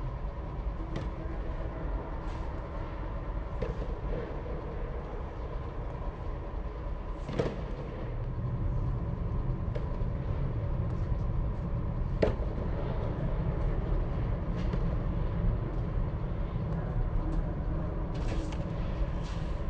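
Tennis balls struck by rackets and bouncing on a hard indoor court, a sharp pop every few seconds, over a steady low rumble.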